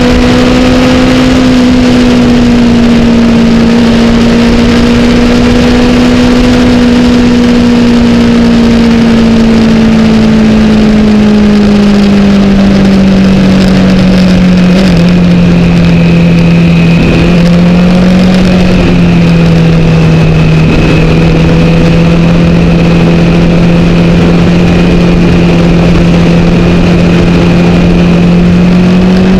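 Wind rushing over the camera at highway speed, with a 2008 Honda CBR1000RR's inline-four engine running steadily underneath. The engine note drops a little about halfway through as the bike slows for the bends.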